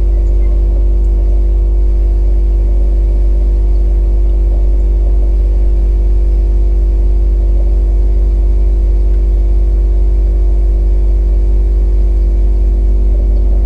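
Drone's spinning propellers humming in flight at a steady, unchanging pitch: a multi-tone buzz over a heavy low rumble.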